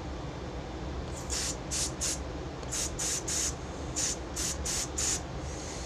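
Aerosol can of carburetor cleaner sprayed in about ten short hissing bursts onto carburetor parts.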